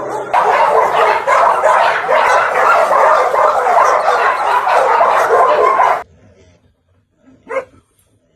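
Many kennelled dogs barking and yipping at once, a loud unbroken din of overlapping barks that cuts off suddenly about six seconds in. A single short bark sounds near the end.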